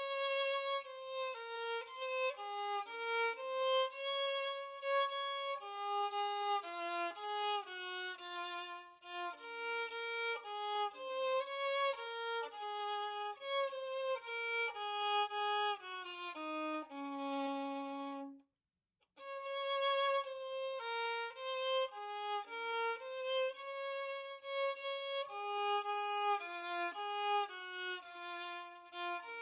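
Solo violin playing a brisk melody of short stepping notes. About two thirds of the way through it holds a long low note, breaks off for a moment, then starts the tune again.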